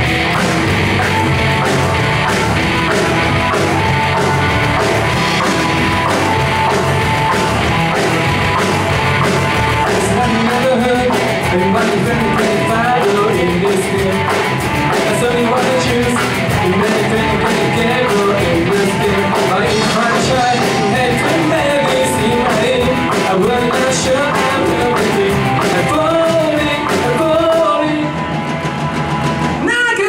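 A live rock band playing, with electric guitars, bass, drums and keyboard, amplified through a PA. A singer comes in over the band about ten seconds in and carries on singing.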